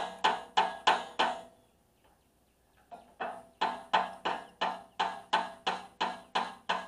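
Background music with a steady percussive beat, about three hits a second. It breaks off into silence about a second and a half in and picks up again about three seconds in.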